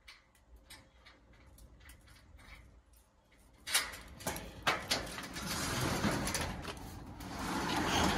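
Metal roll-up storage unit door being unlocked and raised: faint small clicks at first, then a loud clatter about four seconds in, and the corrugated steel door rattles and rumbles as it rolls up.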